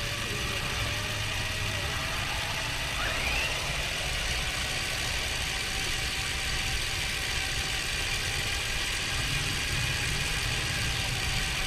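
Car engine running with a steady low rumble and road hiss, and a short rising squeak about three seconds in.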